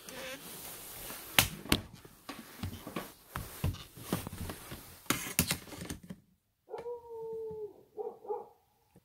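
Scuffing footsteps and knocks of handling in a littered room, then the sound cuts out abruptly. Out of the silence comes a howling cry: one held, steady note lasting about a second, then a shorter one.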